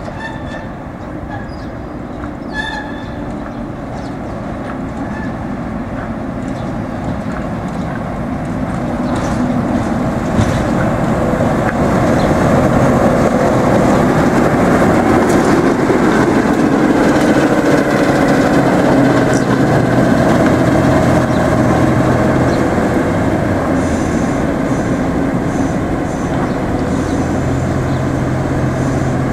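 Class 08 diesel shunter's six-cylinder English Electric engine running as the locomotive moves slowly closer, growing louder over the first ten seconds or so. It then runs steadily close by with a steady low engine note.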